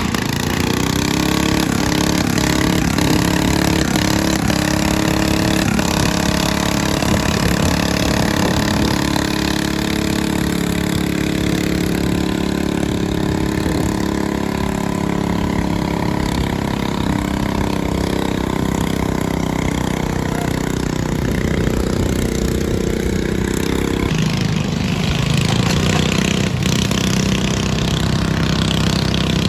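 Pulling garden tractor's engine running hard under load at steady high revs while it pulls the sled. Its note drops and eases a few seconds before the end.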